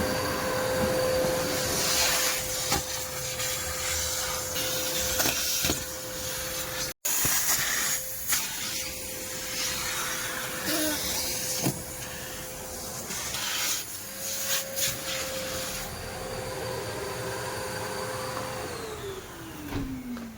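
Kärcher NT 35/1 Ap wet-and-dry vacuum cleaner running, a steady whine over rushing air with a few light knocks. Near the end the motor's whine falls steadily in pitch as it winds down.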